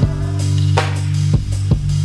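Background music: a held bass line with drum hits.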